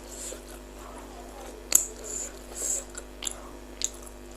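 Close-miked chewing and wet mouth sounds of a person eating bakso meatballs, with a sharp click a little under two seconds in and two fainter clicks near the end.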